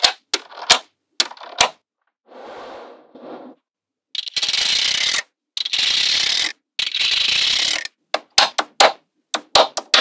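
Magnetic balls snapping together in sharp clicks, with three longer, noisy rushes of about a second each in the middle as the balls are handled in bulk.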